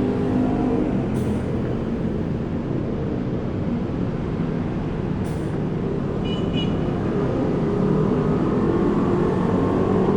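Motor vehicle engine and road noise while on the move, a steady rumble that grows a little louder near the end. Two brief sharp ticks and a short high double beep a little past the middle.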